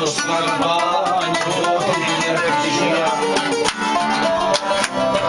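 Live Cretan folk music, instrumental: a wavering melody line played over a steady rhythm of strummed plucked strings, in the manner of lyra with laouto accompaniment.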